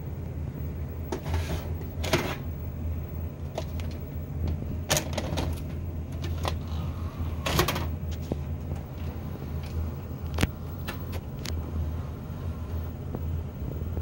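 VHS cassette loaded into a Sharp VC-H993US VCR: handling and mechanism clicks and a few short rattles as the tape is taken in and the machine goes into play, over a steady low hum.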